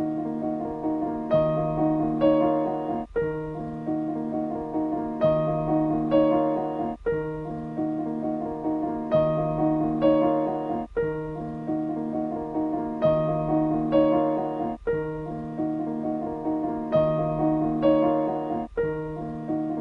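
Gentle solo piano music: a looping phrase of held notes and chords that comes round about every four seconds, with a brief dip in sound between repeats.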